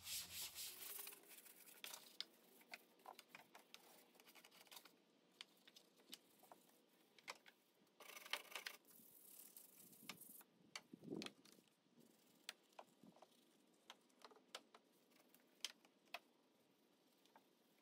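Faint scrubbing of a small bristle detailing brush over a foam-covered engine cover and engine-bay parts: short, irregular scratchy strokes and light clicks, with a few louder scrubbing spells in the second half.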